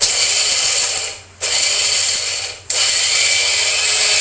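Electric blender grinding grated coconut, roasted chana dal, chili and a little water into a coarse chutney paste, run in three pulses of a second or so each with brief pauses between.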